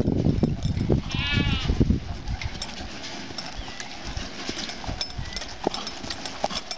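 Horse's hooves falling on dirt as it walks and jogs, under low rumbling noise for the first two seconds. About a second in comes a short quavering bleat from a farm animal.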